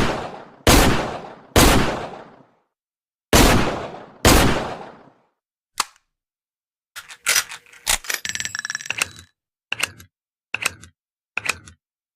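Taurus Model 605 .357 Magnum revolver fired five times, each shot loud with a long echoing decay. After a pause, a clatter of metal with ringing tones, then three single sharp metallic clicks.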